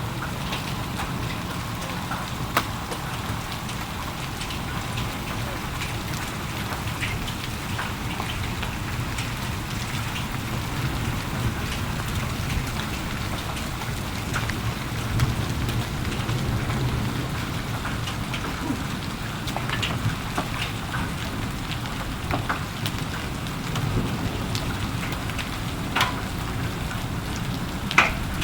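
Heavy rain falling steadily, with scattered sharp taps of drops hitting a surface standing out from the hiss, the loudest near the end.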